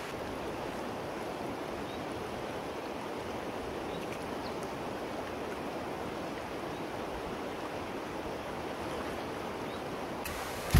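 Fast mountain river rushing over a shallow stony bed: a steady, even rush of water. A sharp clatter breaks in at the very end.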